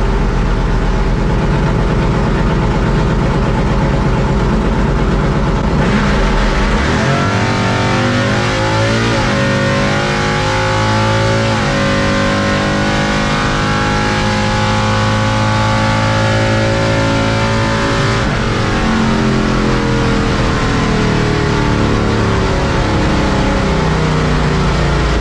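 Drag truck's engine heard from inside the cab during a drag-strip pass. It runs loud and steady at the line, then launches about seven seconds in, climbing in pitch and dropping twice at gear shifts. It holds at full throttle for several seconds, then lifts off and winds down with falling pitch.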